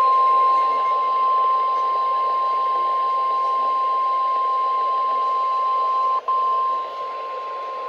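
NOAA Weather Radio's 1050 Hz warning alarm tone, the signal that an urgent warning broadcast follows: one steady high tone over radio hiss. It cuts out for an instant about six seconds in.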